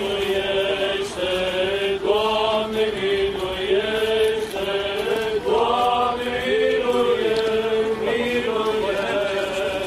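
Voices chanting an Orthodox funeral litany, a single melody line in long held notes that step slowly up and down.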